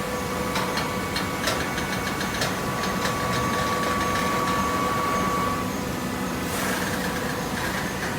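Automatic horizontal cardboard baler running: a steady hum from its hydraulic machinery, with a string of clicks and knocks in the first few seconds and a short hiss about six and a half seconds in.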